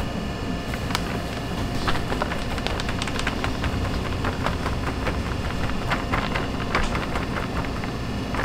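Powder being poured from a plastic bag into a stainless steel mixing bowl: the bag crinkles in scattered crackles, over a steady low background rumble.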